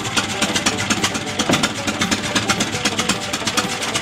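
Bull tractor's straight-gasoline engine running with a fast, even beat, mixed with background music.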